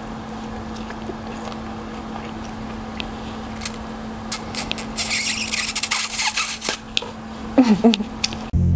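Close-miked noodle eating: chow mein noodles slurped from chopsticks and chewed, with a long hissy slurp about five seconds in and a short closed-mouth 'mm' near the end. A steady low hum sits underneath, and music starts just before the end.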